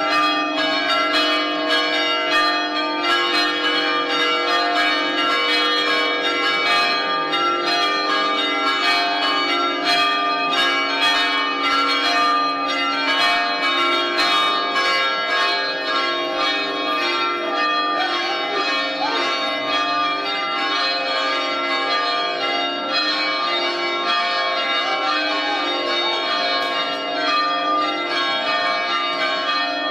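Church bells ringing for a wedding: several bells struck in quick, overlapping succession, their tones ringing on together. The strikes come thicker in the first half and thin out somewhat after it.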